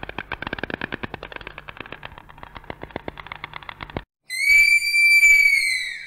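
White stork bill-clattering: a fast, even rattle of clicks that stops abruptly about four seconds in. After a short gap, a three-toed sloth gives one long, high whistle call that drops slightly in pitch as it fades.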